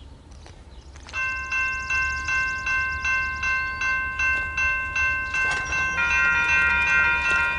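Railroad grade crossing bells start ringing about a second in, a steady strike about two and a half times a second, and a second bell of slightly different pitch joins near the end. The crossing is activating, the warning that a train is approaching.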